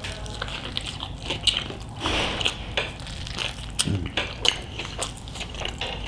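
Close-miked eating: biting into and chewing a large burrito topped with fries and cheese, with many small wet mouth clicks and smacks.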